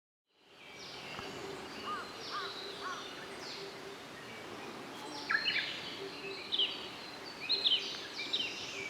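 Wild birds calling and singing over a steady outdoor background with a faint hum. A few short chirps come about two seconds in, then a busier run of high, quick chirps from about five seconds on.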